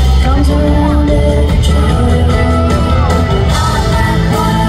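Live country band playing a song, with fiddle, electric guitar, bass guitar and acoustic guitars, and voices singing over the band.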